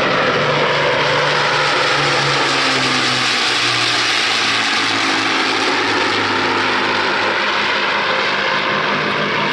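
Avro Lancaster bomber's four Rolls-Royce Merlin V12 engines running as it flies past overhead. The engine note falls slowly in pitch as the aircraft moves away.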